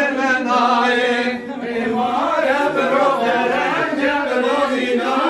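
Men's voices singing a halay folk dance song together, a continuous chant-like melody with no drum beat.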